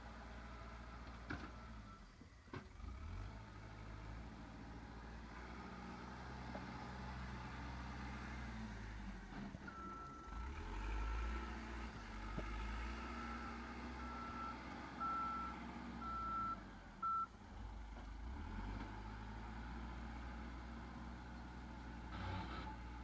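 Backhoe loader's diesel engine running on a steady low note while the machine works. Its reversing alarm beeps at one pitch about once a second for several seconds in the middle.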